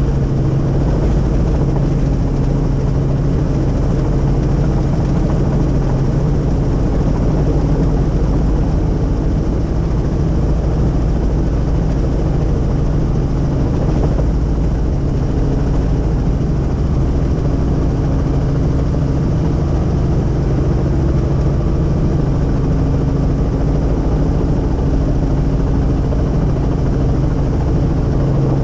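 Helicopter in flight heard from inside the cabin: a loud, steady drone of engine and rotor with a low hum.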